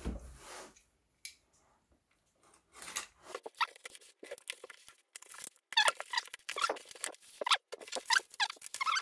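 A cardboard box being opened, its packing tape tearing, then bubble wrap crinkling and rustling as a wrapped package is handled, in dense crackles that grow louder in the second half.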